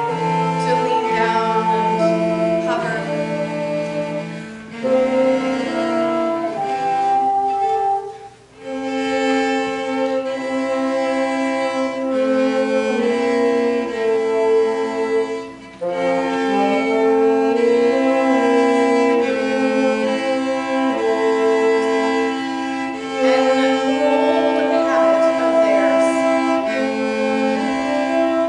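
Bassoon and cello playing a duet in held, overlapping notes, one line low and one higher, with a brief break about eight seconds in.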